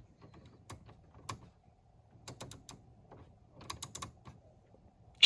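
Irregular light clicks and taps, some in quick little clusters, with one sharp, louder click near the end.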